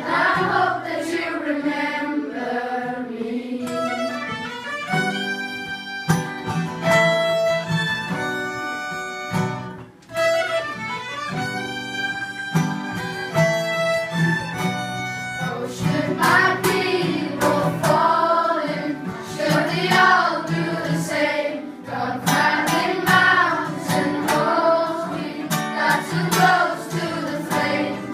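A school rehearsal ensemble playing: two violins and acoustic guitar carry the opening, and from about halfway through a choir of children comes in singing over guitar strumming.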